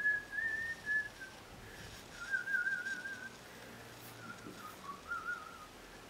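A person whistling a slow tune: held notes, then a warbling trill about two seconds in, then shorter falling notes.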